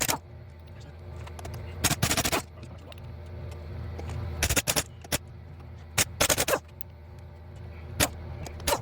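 Impact wrench hammering in short bursts, several times, as fasteners on the Dana 44 steering knuckle are run off, over a steady low hum.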